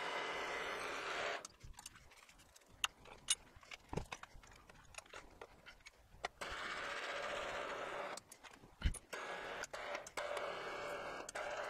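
Milling machine running with a steady hum, stopping abruptly about a second in. A few seconds of light clicks and knocks follow, then the machine runs steadily again from about six seconds on.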